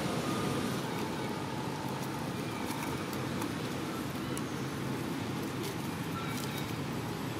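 Steady low outdoor background rumble with faint higher tones and a few small clicks.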